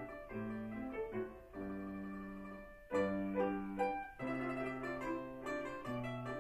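A domra playing a melody with August Förster grand piano accompaniment, the piano holding low chords beneath it. The music grows louder with a sharp entry about three seconds in.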